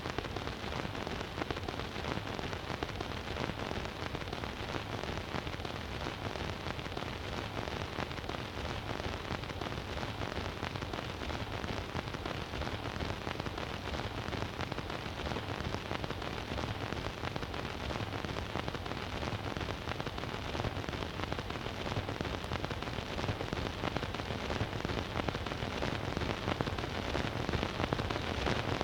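Surface noise of an 8-inch Eclipse 78 rpm record played on a Bush record player: the stylus runs through the lead-in groove, giving a steady, dense crackle and hiss with no music. It grows slightly louder near the end.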